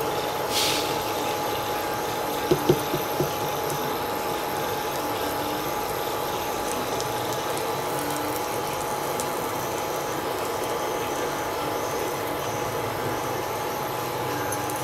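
Pancake batter frying in oil on a hot pan: a steady sizzle with a faint steady whine underneath. A brief hiss comes just under a second in, and three quick knocks follow about two and a half seconds in.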